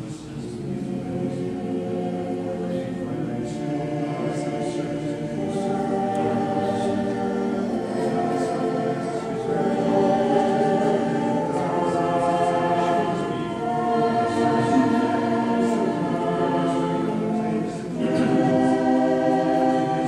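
Orthodox church choir singing a hymn a cappella in several parts, in long held phrases that swell louder through the first half. There is a brief break near the end before the next phrase begins.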